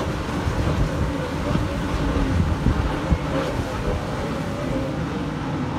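Boat engines droning steadily, with wind buffeting the microphone.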